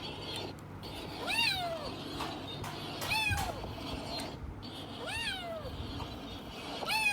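Domestic cat meowing four times, about every two seconds; each meow rises and then falls in pitch.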